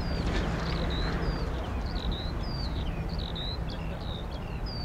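Low jet rumble of a departing Boeing 737-400 freighter fading slowly as it climbs away. Small birds chirp over it with many short, repeated notes.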